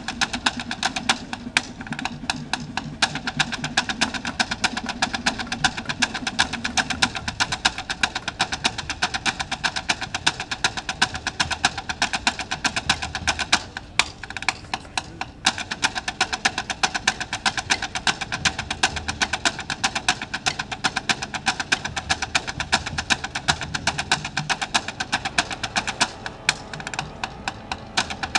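Drum-corps snare line playing sticks in unison on a wooden practice plank: dense, even rhythmic clicking of a flam exercise, with a brief stop about halfway before it starts again.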